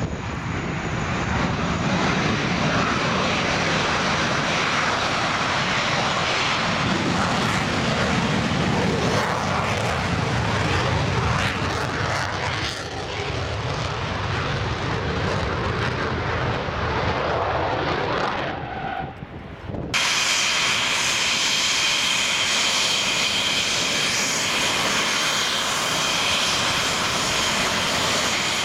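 An English Electric Lightning's twin Rolls-Royce Avon turbojets at full power during a fast taxi run: a loud, steady jet noise that dips near the end of the run. Then, after a sudden change, the Lightning taxis slowly with its engines running at low power, giving a steady high-pitched whine.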